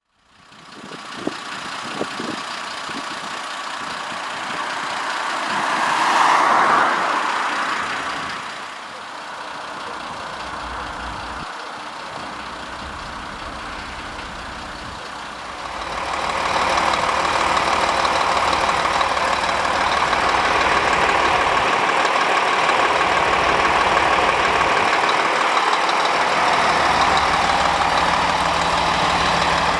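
Scania fire engine's diesel engine idling steadily, louder and closer from about sixteen seconds in.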